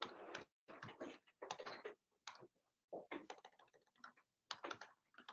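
Faint typing on a computer keyboard: short keystroke clicks in irregular runs.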